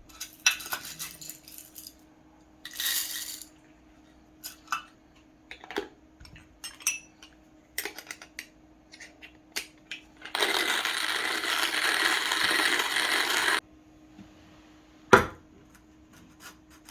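CUG stainless-steel hand burr grinder grinding coffee beans at a medium setting, with metal clicks and clinks as it is handled. Past the middle there is about three seconds of steady gritty crunching, and near the end one sharp knock.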